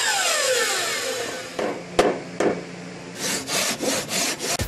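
Woodworking intro sound effects: a sweep falling in pitch over the first second and a half, two sharp knocks, then a quick series of rasping strokes of a saw cutting wood.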